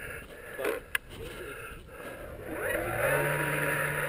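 The electric 450-size motor and propeller of an E-flite Mini Pulse XT model plane spinning up with a rising whine about two and a half seconds in, then running steadily.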